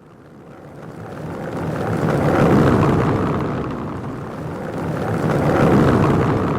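Car tyres rumbling over a cobblestone road as vehicles pass, the noise swelling to a peak about two and a half seconds in, easing, then swelling again near the end.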